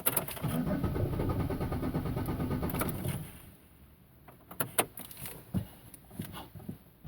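2001 Chevrolet Monte Carlo's starter cranking the engine steadily for about three seconds without it catching, then stopping; a few sharp clicks follow. The engine cranks but won't start, a fault the owner says is not the alternator, spark plugs or fuel pump.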